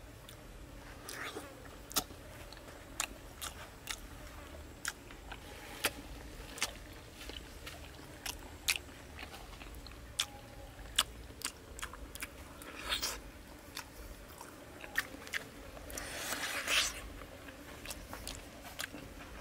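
Close-up mouth sounds of a person eating soft fruit jelly: irregular wet smacking clicks and chewing, with two longer noisy stretches, one about two-thirds of the way in and one near the end.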